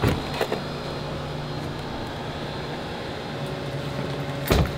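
Steady humming drone around a parked car, with a couple of light clicks at the start and a single sharp thud near the end as a car door is shut.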